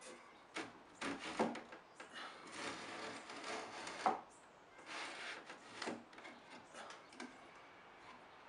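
Hand-held edge-banding trimmer shaving overhanging veneer edge banding off a plywood edge: a series of short scraping strokes, with a sharp click about four seconds in.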